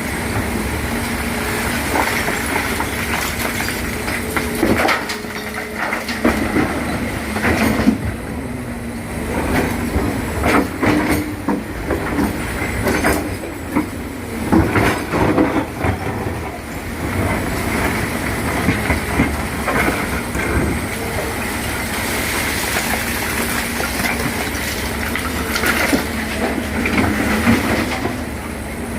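Excavator at work: its diesel engine running steadily under repeated metal clanks and knocks, with a faint high squeal of steel on steel.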